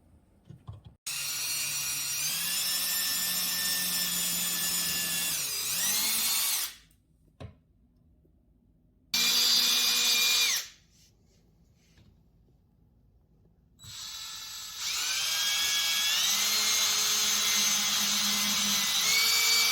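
Power drill driving screws into wood in three runs: a long run of about five seconds, a short one of about a second and a half, then another of about six seconds, its motor whine shifting in pitch within each run.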